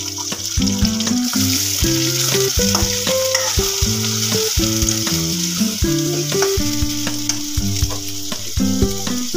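Sliced onions and dried red chillies sizzling in hot oil in a steel kadai, stirred with a metal ladle that scrapes and clicks against the pan. A tune of steady pitched notes runs underneath.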